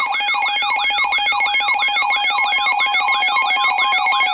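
Broadcast emergency alert tone: a rapid electronic warble sweeping up and down about three to four times a second over steady held tones. It signals a tornado warning about to be read on the radio.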